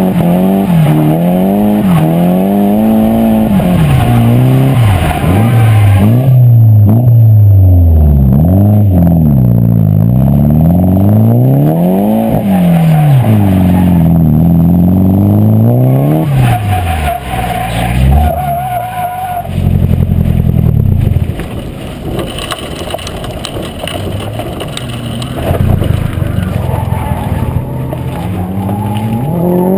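Nissan 240SX's turbocharged SR20DET four-cylinder engine revving up and down hard through a drift, with tyres squealing as the car slides, running with a blown turbo. After about twenty seconds the revs fall away and the engine settles to a lower, steadier note.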